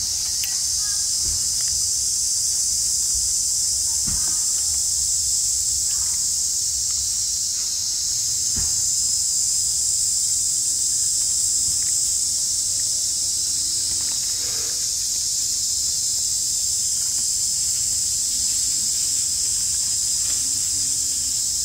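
Steady, high-pitched insect chorus droning without a break, with a few faint knocks.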